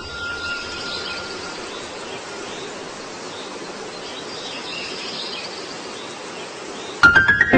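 Lakeside ambience: a steady rush of wind and small waves lapping at the reedy shore, with faint high chirps. Music comes in near the end.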